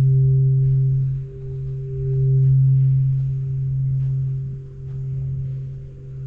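A steady low ringing drone, one deep tone with a fainter higher overtone, swelling and fading every second or two without dying away.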